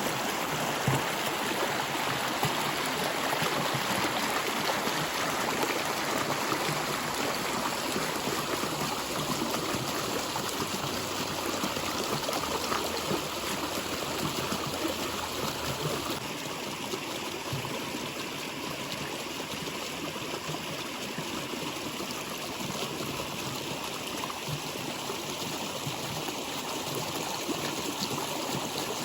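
Natural water flowing steadily, an even noise without breaks that turns slightly quieter about halfway through.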